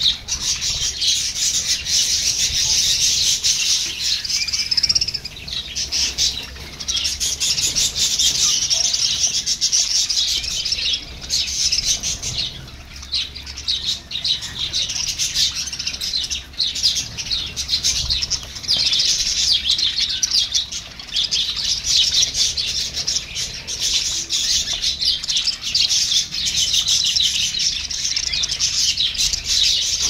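A flock of budgerigars chattering: many birds chirping at once in a dense, continuous warble with only brief lulls.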